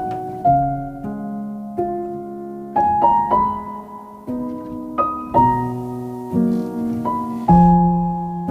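Background music: soft solo piano playing slow, gently struck chords and single notes that ring out and fade.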